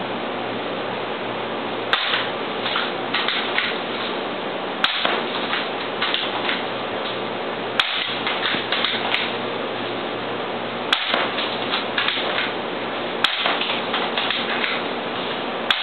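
Spring-powered Cyma M4 airsoft rifle firing single shots, a sharp snap about every three seconds, six in all, with smaller clicks and rattles between shots, over a steady background hiss.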